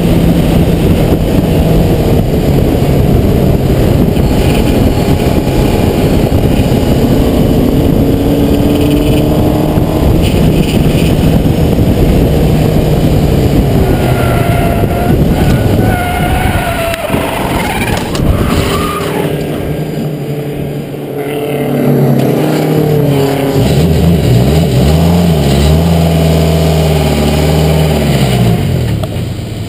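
Onboard sound of a Skip Barber open-wheel formula race car at speed: the engine runs hard under heavy wind rush, its pitch rising and falling through gear changes. The sound drops back for a few seconds past the middle, then the engine revs up and down again as the car slides sideways near the end.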